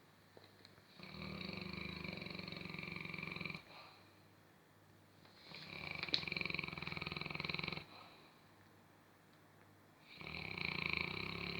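A sleeping dog snoring: three long snores of about two and a half seconds each, one every four to five seconds, with quieter breathing between.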